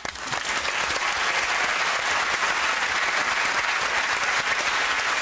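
Studio audience applauding, building quickly at the start and then holding steady.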